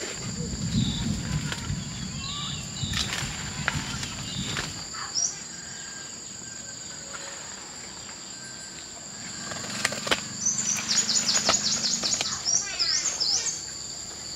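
Rural outdoor ambience: insects droning steadily at two high pitches, with a bird giving a quick run of short falling chirps in the second half. A low rumble fills the first few seconds, and scattered clicks and rustles come throughout.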